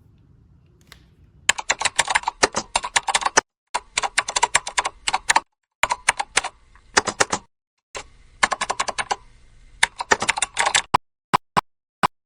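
Rapid clicking like keyboard typing, in five bursts of about one to two seconds each with dead silence between them, then a few single clicks near the end.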